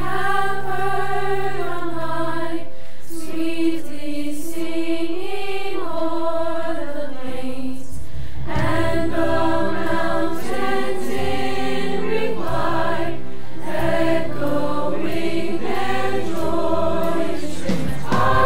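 Mixed-voice school choir singing in harmony on long held notes that move every second or two. It is a virtual choir: separately recorded home singers mixed into one ensemble.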